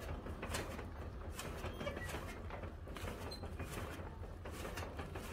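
Hand-turned chaff cutter chopping green fodder: irregular clicks and rattles from the blades and gearing as the flywheel is turned.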